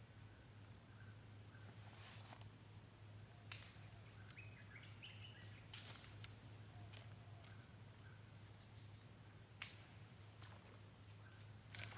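Near silence: faint open-field ambience with a steady high-pitched insect drone, broken by a few soft clicks.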